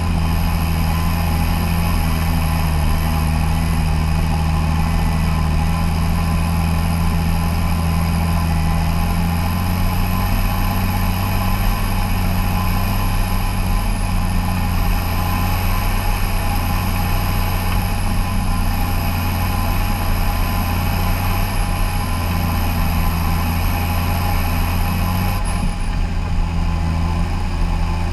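Fendt 714 tractor's six-cylinder diesel engine running steadily under load while pulling a land-leveling implement, heard from outside the cab, with a steady high whine above the engine note. The engine note shifts briefly near the end.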